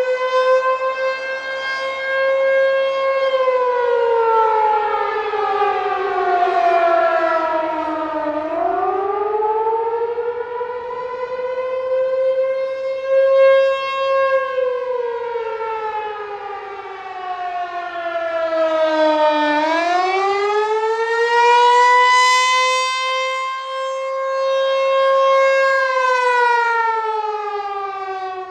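American Signal T-128 rotating outdoor warning siren sounding the attack signal. Its wail holds its pitch, drops and climbs back about eight seconds in and again around twenty seconds in, then begins falling near the end, swelling and fading as the horn turns.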